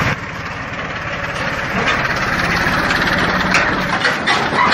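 Farm machinery engine running steadily, with a few short clicks near the end.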